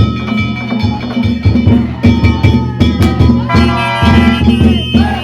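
Danjiri float's festival ensemble (narimono): a large taiko drum beats a rapid, even rhythm while small metal gongs (kane) ring steadily over it. Voices call out over the drumming toward the end.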